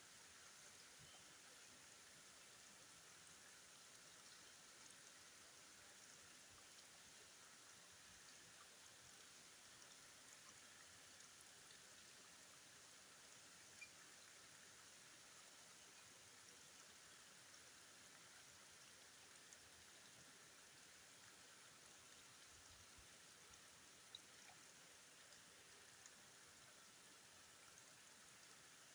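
Near silence: a faint, steady rush of river water, with a couple of faint ticks.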